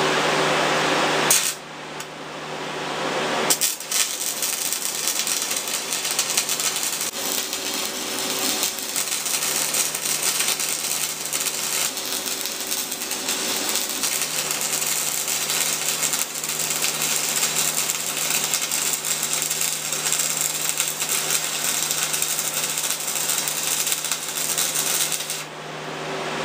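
Stick welding arc crackling steadily as a bead is run, starting about four seconds in and stopping about a second before the end. Under it runs the steady hum of a cheap electric fan pulling the welding fumes away.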